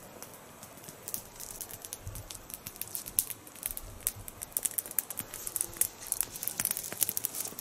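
Footsteps crunching through dry moss, lichen and twigs on the forest floor: a dense run of small crackles and snaps.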